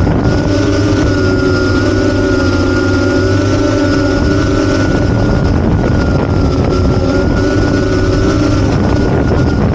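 An 8-inch FPV quadcopter's T-Motor F90 brushless motors and propellers running in flight: a steady buzzing drone of several tones whose pitch wavers slightly.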